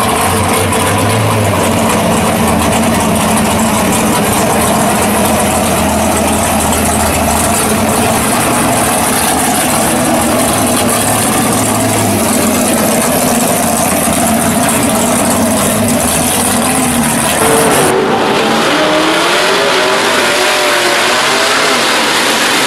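1967 Camaro SS drag car's engine running steadily at low speed as the car rolls along. About three-quarters of the way in, the sound changes abruptly to the engine revving up and down in short blips.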